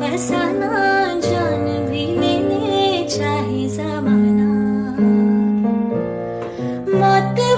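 A woman singing a slow, melodic song over piano chords.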